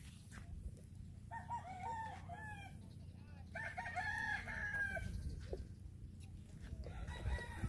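A rooster crowing twice, each crow about a second and a half long, over a low steady rumble.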